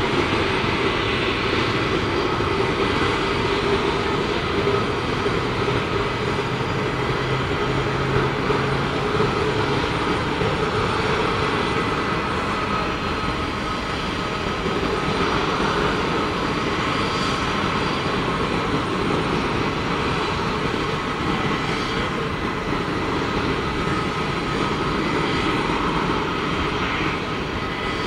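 Boeing 737-300's CFM56 turbofan engines running at low taxi thrust: a steady hiss of jet noise with thin, high whines held on one pitch.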